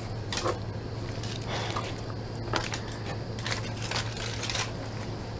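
A hand scraping and squishing ketchup-smeared food across wooden floorboards and onto a paper plate: a series of short, irregular wet scrapes and crinkles.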